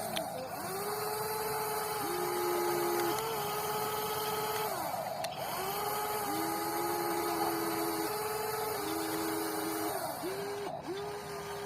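Electric motors of a WLtoys 16800 metal RC excavator whining as it works, starting and stopping every second or two with the pitch gliding up at each start and down at each stop. At times two motors run together at different pitches.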